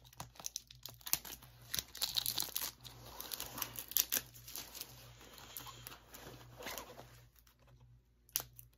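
Packaging of a DVD box set being torn open and crinkled by hand: a dense run of sharp crackles and rustles that eases off near the end.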